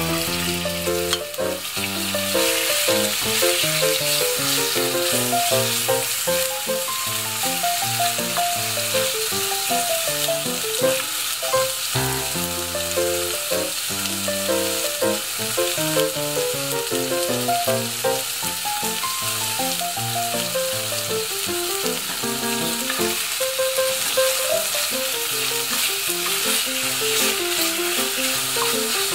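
Chunks of Ezo sika deer venison sizzling steadily as they sear in olive oil in a hot enamelled cast-iron STAUB pot, a wooden spatula stirring them near the end. Background music with a melody of short notes plays underneath.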